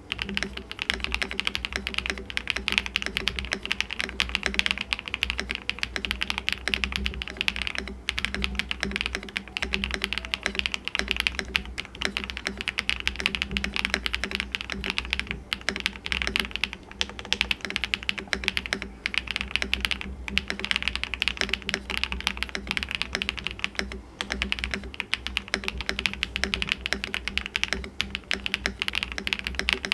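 Fast continuous typing on a gasket-mounted Chosfox Fox65 mechanical keyboard fitted with HMX White Fox linear switches and PBT keycaps: a dense, irregular run of key strokes with a deep sound.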